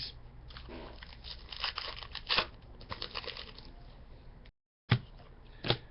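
Trading card pack wrapper crinkling and crackling as it is torn and handled along with the cards, followed by two sharp clicks near the end.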